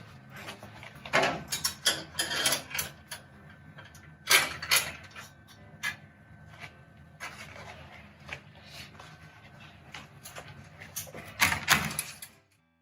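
Irregular knocks and clatter from handling the pressure smoker and its rib rack, loudest about a second in, around four and a half seconds in and near the end, over a low steady hum.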